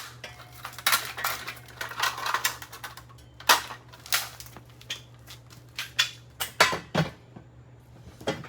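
Irregular clatter and sharp knocks of the smashed RCA RC142 clock radio's broken plastic casing and parts.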